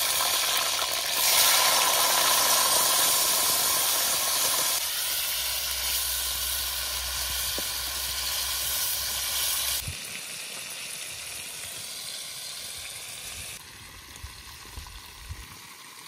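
Pieces of dressed quail frying in hot oil in a steel karahi: a loud sizzle as the meat goes into the oil, easing down in steps over the following seconds.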